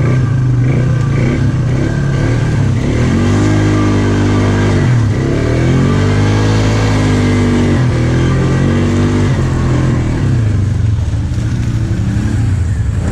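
ATV engine revving hard under load, climbing a muddy hill in two-wheel drive with extra throttle. The revs swell and drop about three times as the throttle is worked.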